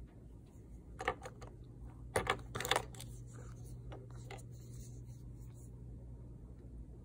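Small cosmetic cases, lipstick tubes and a lip tint bottle, clicking and clacking against each other and the desk as they are picked up and handled. The clicks cluster about one to three seconds in, with a few more around four seconds, over a low steady hum.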